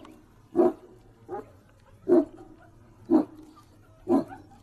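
Large dog barking, single deep barks at a steady pace of about one a second, five in all, the second one softer than the rest.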